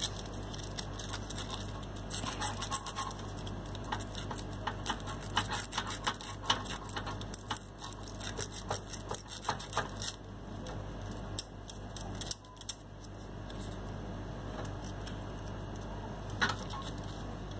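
Folded sandpaper scraping between a relay's contact points, with a run of small scratches and clicks that stops about twelve seconds in. The relay's contacts are pitted and burnt, and are being cleaned.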